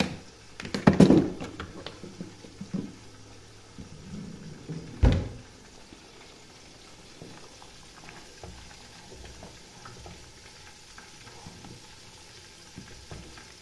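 Metal utensils clattering as a spoon is pulled out of a crowded kitchen drawer, then the drawer is pushed shut with a single knock about five seconds in. After that only faint, scattered light taps.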